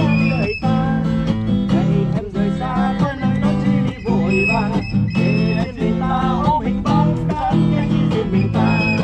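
Acoustic guitar strummed in a steady rhythm, with a voice singing along.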